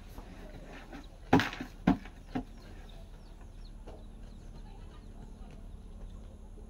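Three sharp knocks about half a second apart, the first loudest, from concrete hollow blocks being laid and set into place on a block wall.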